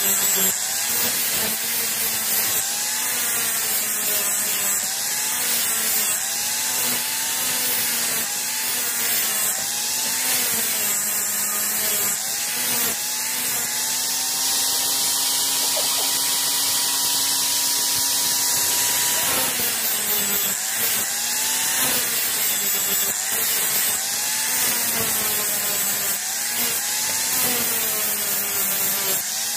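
Electric angle grinder's abrasive disc grinding a steel plate, a steady hiss over a motor whine that dips in pitch and recovers again and again as the disc bites into the metal. Around the middle the whine holds steady for several seconds before the dipping resumes.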